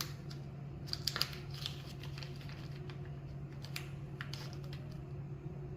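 Small clicks and crinkling rustles, in two short clusters about one and four seconds in, as the small parts of an Andis clipper's motor are handled during a brush replacement. A steady low hum runs underneath.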